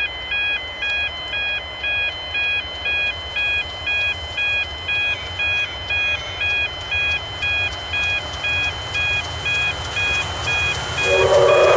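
Electronic railway level crossing warning bell ringing steadily, about two chimes a second, over the low rumble of an approaching train. In the last second a steam locomotive's chime whistle starts blowing, loud and held.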